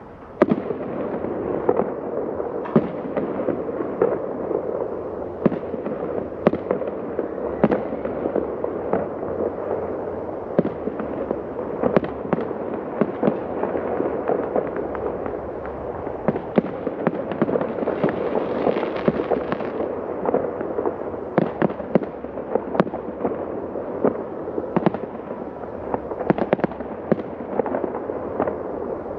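Professional aerial fireworks display going off continuously: a dense, echoing rumble of bursts with many sharp cracks and bangs on top. It starts abruptly just after the start.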